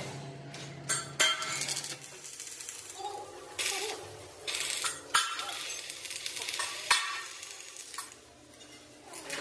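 Arc welding on a steel tractor front-axle beam: crackling and sizzling in several short bursts with quieter gaps between them, dying down near the end.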